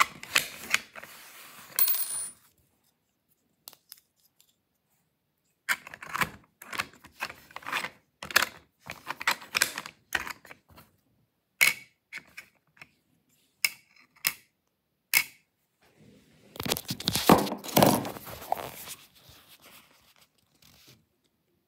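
3D-printed plastic lock parts clicking, tapping and scraping as they are handled and fitted together, in short irregular clicks and knocks. The rubbing and clattering is longest and loudest a little before the end.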